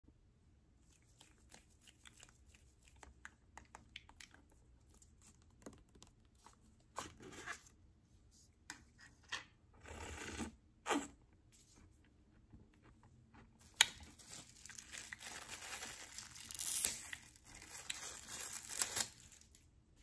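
Close-miked handling noises: scattered light clicks and taps, a noisy sip from a milkshake cup about halfway through, then several seconds of a wrapper being torn open and crinkled near the end.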